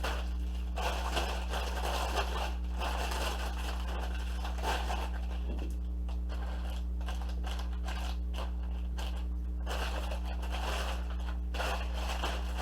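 A Lego set's box being opened and emptied by hand: irregular rustling, scraping and crinkling of cardboard and plastic parts bags, in several spells with pauses between. A steady low electrical hum runs underneath.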